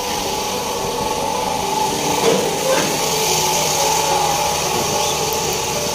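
Steady mechanical hum of a running motor, holding a constant pitch.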